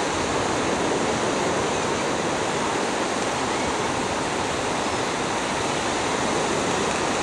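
Ocean surf breaking and washing up on a sandy beach: a steady, even rush of waves.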